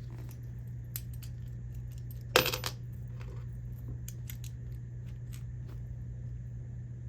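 Small metal clicks and taps from a padlock being taken apart by hand, with one sharp metallic clink and a short ring about two and a half seconds in. A steady low hum runs underneath.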